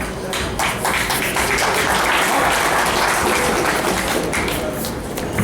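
Many hands clapping, as in applause: a dense patter that builds about half a second in, is fullest in the middle and thins out near the end.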